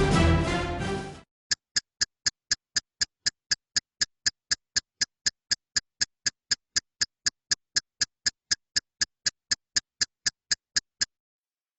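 Background music stops about a second in, then a clock-ticking sound effect: sharp, evenly spaced ticks, about four a second, with complete silence between them, stopping shortly before the end.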